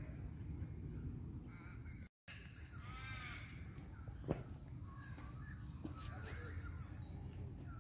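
Birds calling around a lake: a harsh, crow-like call about three seconds in, over a steady run of high, evenly repeated chirps and other scattered chirps. A low steady rumble sits underneath, with one sharp click in the middle, and the sound drops out for a moment about two seconds in.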